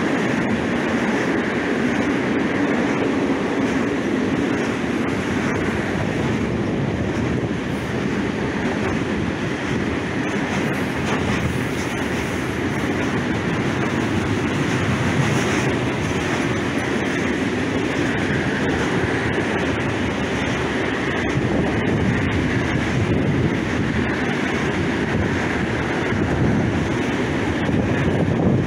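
Long freight train of open wagons rolling past on the rails, the wheels making a steady rumble that holds level as the wagons go by.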